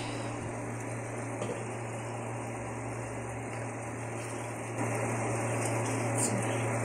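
Chicken simmering in a thickened butter-garlic sauce in a stainless pot, a steady bubbling hiss over a low steady hum. It gets a little louder about five seconds in, as a spoon stirs the pot.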